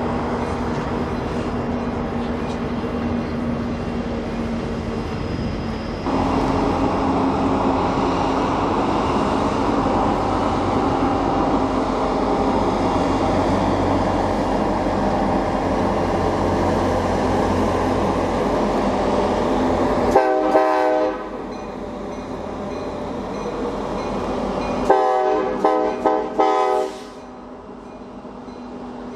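Diesel freight train running, a steady engine drone and rail rumble that grows louder about six seconds in. A multi-chime locomotive horn sounds a short blast about twenty seconds in, then a longer blast about five seconds later.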